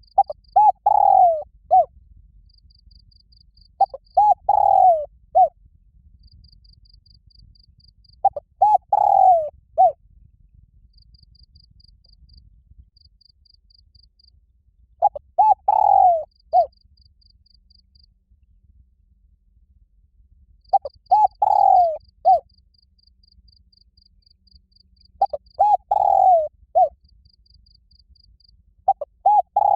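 Spotted dove cooing loudly, its territorial challenge call. Each phrase is two short coos, a longer falling coo and a final short note, repeated about every four to six seconds. A faint, rapidly pulsing insect trill comes and goes in the background.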